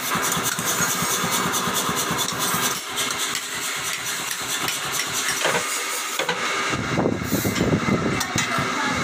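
Electric forge blower running, a steady motor noise with air rushing into the coal fire; it grows fuller and a little louder about seven seconds in.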